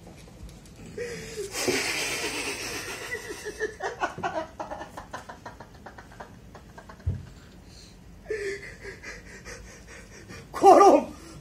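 A male actor's wheezing, strained vocalising with a held pitch, breathy and hissing, about a second in. Near the end comes a short loud vocal outburst.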